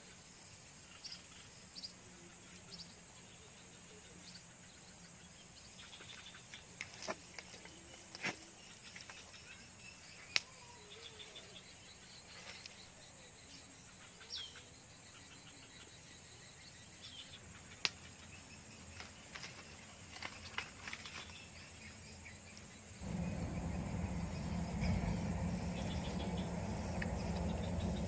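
Faint outdoor ambience of insects droning steadily, with scattered short chirps and sharp clicks. Near the end a louder low rumbling noise starts suddenly and continues.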